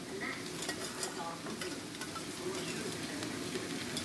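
Fried rice with egg, shredded tuna and carrot sizzling steadily in a stainless-steel wok, with a few light clicks of a utensil against the pan.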